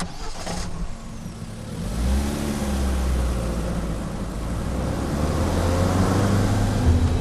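Car engine running in a cinema-style sound mix: it comes in with a sharp hit, then swells into a deep rumble about two seconds in, with revs rising and falling.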